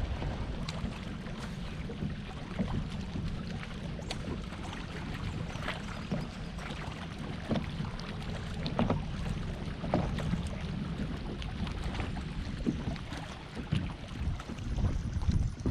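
Steady low rumble of wind on the microphone and water against a small fishing boat, with scattered light clicks and knocks.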